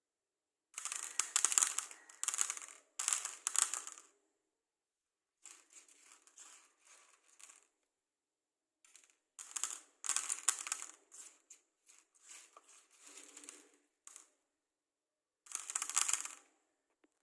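Matchsticks handled close to the microphone: bursts of dry scratching and rustling, with short silent pauses between them.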